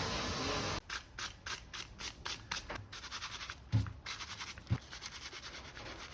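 A steady hiss that cuts off about a second in, then rhythmic scraping strokes by hand, about three a second and quickening. Two dull thumps fall in the middle.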